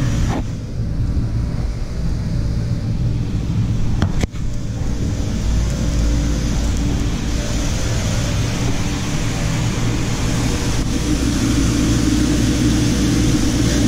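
Bench grinder motor running with a steady hum, with a brief click about four seconds in. In the second half the steel shaft of an AC fan motor's rotor is held against the spinning wheel to clean it, adding a hiss.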